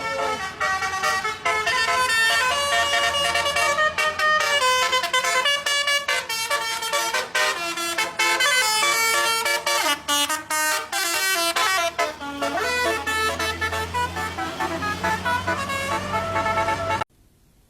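Basuri musical vehicle horn playing a fast tune of rapidly changing notes, which cuts off suddenly near the end.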